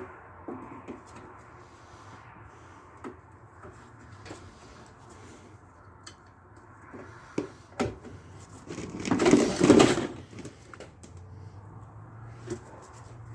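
Scattered light knocks and clicks of parts and tools being handled on a lawn mower front axle repair, with a sharper knock just before eight seconds and one louder scraping noise lasting about a second and a half around nine seconds in.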